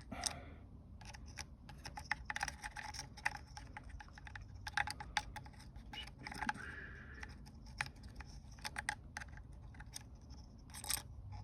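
Faint, irregular small clicks and light scraping of parts being handled as a DSG7 (DQ500) gearbox mechatronic unit is carefully prised open by hand to reach the pressure sensors. There is a short scraping sound about six and a half seconds in and a sharper click near the end.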